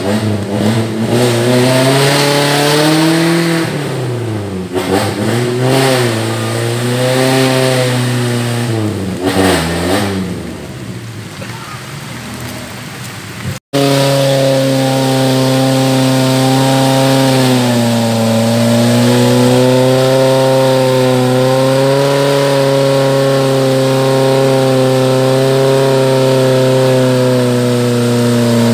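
Small off-road 4x4's engine working through deep mud, revving up and down several times. After a sudden break about halfway, it holds steady high revs.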